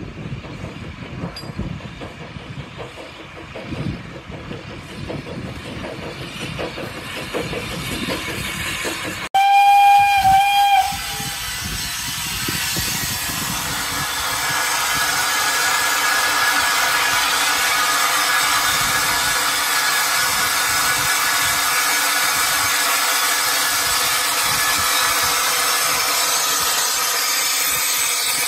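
Train coaches rolling past with a low rumble and wind on the microphone. About nine seconds in, a steam locomotive whistle sounds one short blast, the loudest sound, and then a steady, loud hiss of escaping steam from the locomotive.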